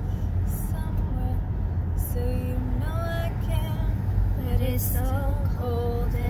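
A woman and a girl singing a melody together in short phrases of held notes, without instruments, over the steady low rumble of the car cabin.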